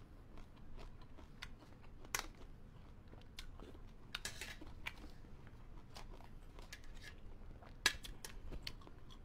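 Close-up mouth sounds of chewing raw Thai eggplant: soft, scattered crisp crunches and wet clicks, with a sharper click near the end.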